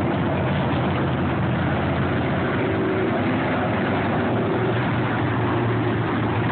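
Dirt-track sportsman race cars' engines running together as the cars circle the oval, a steady drone whose engine tones drift slightly up and down.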